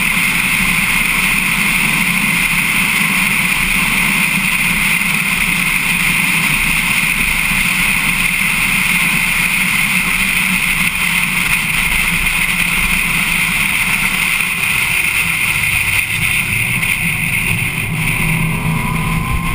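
Race car engine running steadily at speed, heard from a camera mounted on the car, with constant wind and road noise. A rising note comes in near the end.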